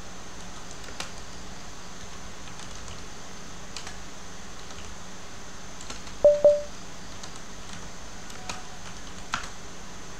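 Faint, scattered computer keyboard clicks over a steady background hiss and hum. About six seconds in come two short, loud beeps in quick succession, the loudest sound here.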